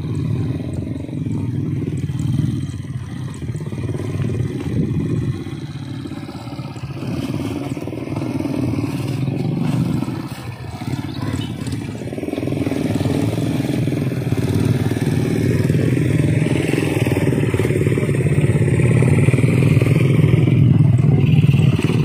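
Small motorcycle engine running close by, a steady low drone that dips briefly around the middle and grows louder in the second half.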